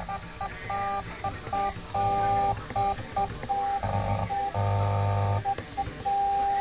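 Stepper motors of a small USB-controlled CNC machine whining through a series of short moves: the tone starts and stops many times, changing pitch slightly from move to move, and settles into a longer steady whine near the end.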